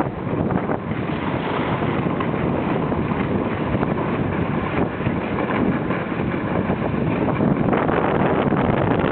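Wind rushing over the microphone together with the steady scraping hiss of sliding down a packed-snow ski slope.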